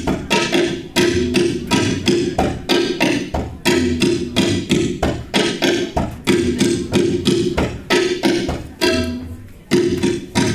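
Tabla ensemble playing fast strokes together: a dense, steady rhythm of sharp, ringing dayan strokes over deeper bayan strokes, with a brief thinning of the strokes near the end before the playing picks up again.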